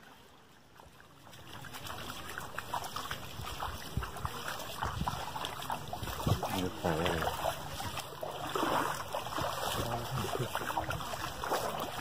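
Feet wading and splashing through a shallow stream of ankle-deep water over sand, with irregular sloshes. It starts after about a second and a half of near quiet. Faint voices of other people are heard in the middle.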